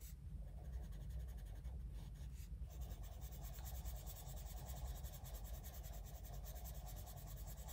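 Coloured pencil shading lightly on paper, a soft scratching of the pencil lead.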